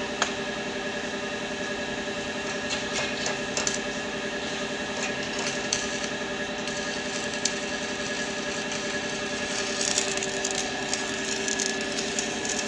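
Stick (arc) welding: the electrode's arc crackling and sizzling steadily, with a steady hum underneath and occasional sharp ticks.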